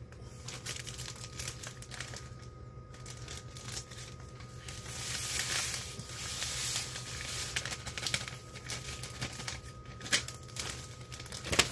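Thin clear plastic bag crinkling and rustling as it is handled and opened, with a paper packet of dry coating mix being shaken into it. The crinkling is densest midway, and there is a sharp tap just before the end.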